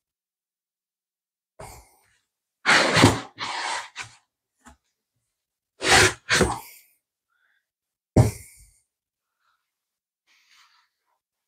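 Cardboard box and molded pulp can trays scraping and knocking as the trays of cans are worked out of the box, in a handful of short bursts, the last a thump about eight seconds in.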